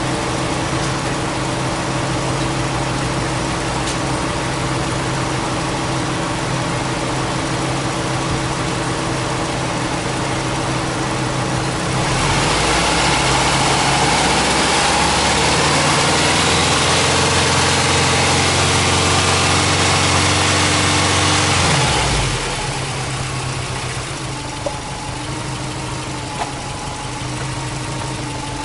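Subaru Impreza WRX Type R STi Version IV's turbocharged EJ20 flat-four idling steadily. About twelve seconds in, its revs rise and are held up, louder, for about ten seconds. They then drop back to idle.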